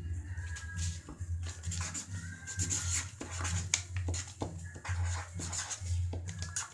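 Black permanent marker rubbing on paper in short, scratchy strokes, with some paper handling, over a low background hum.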